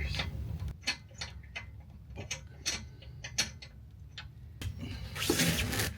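Scattered sharp metallic clicks and taps at uneven intervals, from hand tools being worked on the car's rear wheel hub and brake parts, with a brief rush of noise near the end.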